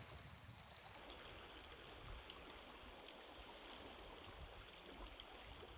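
Faint, steady wash of small waves at the water's edge, with a low wind rumble on the microphone.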